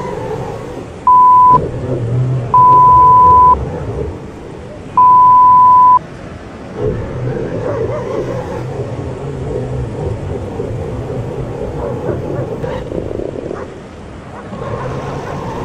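Three loud, steady electronic beeps of one pitch in the first six seconds, one short and two about a second long, over the low rushing wash of ocean surf breaking over a camera on a radio-controlled truck.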